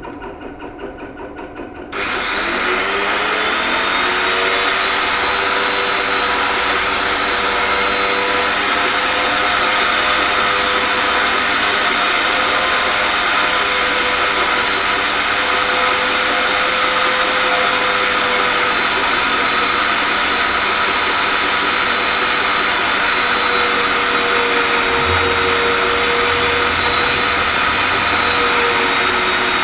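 A router switching on about two seconds in and spinning up with a rising whine over the steady hum of a drill press already running. It then runs at a steady high pitch, which sags slightly near the end.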